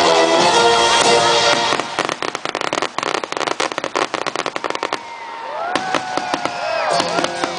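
Aerial fireworks going off in a fast string of sharp bangs and crackles from about two seconds in, over background music. The bangs are followed by a few seconds of gliding whistles as the bursts fall away, and the music comes back near the end.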